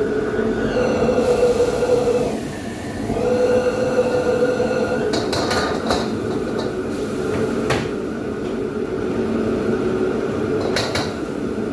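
Steady roar of a commercial wok burner and range-hood extractor while a chef stir-fries, with a steel ladle clanking against the wok a few times: about five seconds in, near eight seconds and near the end. A whistling tone comes and goes twice in the first five seconds.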